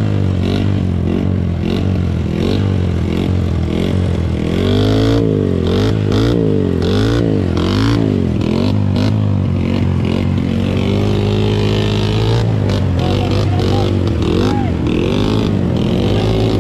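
Dirt bike engine revved up and down again and again, its rear wheel spinning and throwing mud: the bike is stuck in deep mud.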